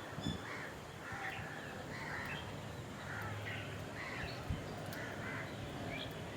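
Birds calling: a run of short, repeated calls, about two a second, over a steady outdoor background.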